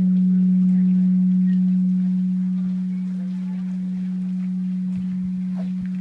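Large Japanese temple bell (bonshō) humming after being struck with its swinging wooden log, one deep steady tone slowly fading.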